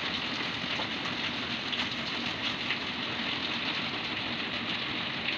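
Coloured pencil rubbing back and forth on paper, a steady scratchy noise as the wing of a drawing is coloured in.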